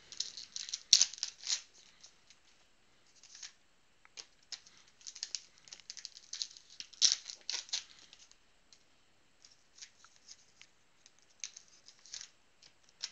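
Football trading-card pack being opened and its cards handled: wrapper crinkling and cards rustling in irregular clusters of small crackles and clicks, loudest about a second in and again around seven seconds in.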